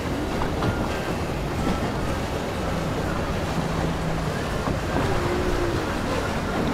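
Motorboat engines running steadily, with the rush of water from the boat wakes and wind on the microphone.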